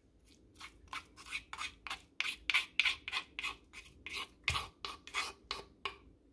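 Crushed garlic being scraped out of a stone mortar: a quick run of scraping strokes, about three a second, loudest in the middle.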